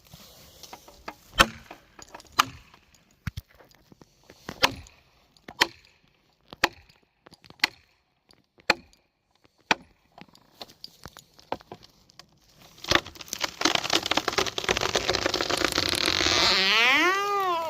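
A series of sharp wooden knocks about once a second, like chopping or striking wood. About two-thirds of the way in, a chainsaw starts running loudly, and near the end its pitch dips and climbs again.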